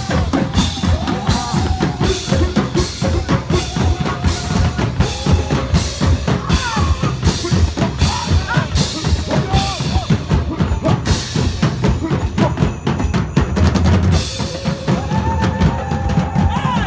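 Loud music with a steady drum-kit beat, bass drum and snare, about two beats a second.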